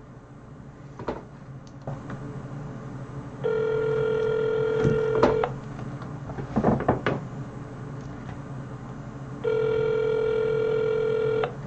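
Telephone ringback tone heard through a phone on speakerphone: two steady rings of about two seconds each, roughly six seconds apart, meaning the call is ringing through and not yet answered. A few faint clicks and handling noises fall between the rings.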